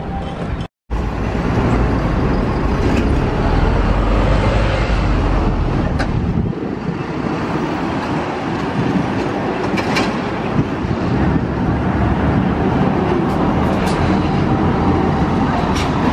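Busy city street traffic at an intersection, with road vehicles running past and a low steady rumble. An Okayama Electric Tramway streetcar rolls toward the microphone on its rails near the end. The sound cuts out briefly about a second in.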